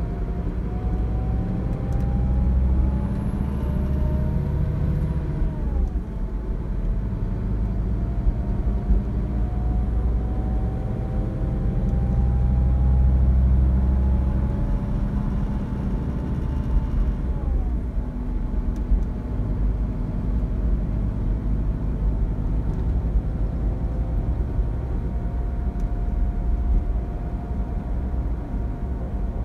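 Scania K360 coach's five-cylinder diesel engine heard from inside the passenger cabin, pulling up through the gears. Its pitch climbs steadily, drops sharply at a gear change about five seconds in, climbs again, drops at a second gear change about seventeen seconds in, then holds steady at cruising speed.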